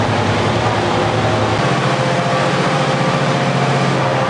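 A large engine running steadily, a deep even hum that shifts slightly in pitch about one and a half seconds in.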